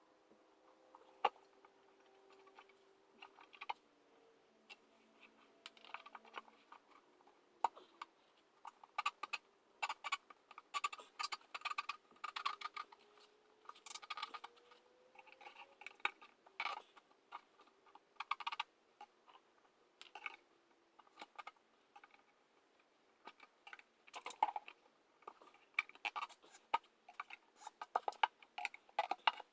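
Irregular clicks, taps and short scraping rattles of hand work on a motorcycle wheel and tire, busiest in the middle and again near the end.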